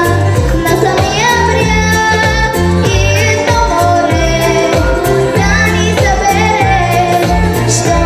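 A young girl singing a song into a microphone over instrumental accompaniment with a steady beat and a bass line.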